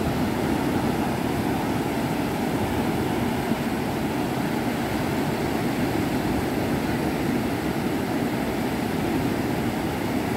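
Surf breaking and washing up a sandy beach: a steady, unbroken rushing noise.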